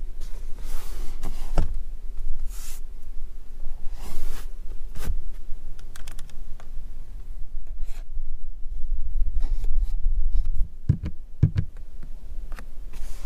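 Scattered plastic clicks and rubbing as a hand works a car's rear-cabin fittings: the air-vent slats and a small hook on the door pillar. A low rumble of the phone being handled runs underneath.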